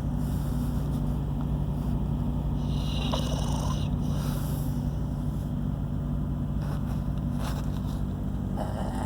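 Sleep snoring, with short noisy breaths about three seconds in and near the end, over a steady low hum that runs throughout.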